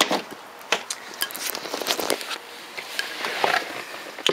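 Handling noise from someone climbing into a car's driver's seat: scattered knocks, clicks and rustling.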